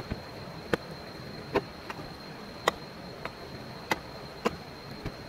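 A steady high-pitched insect drone, with sharp knocks or taps at irregular intervals, about one or two a second.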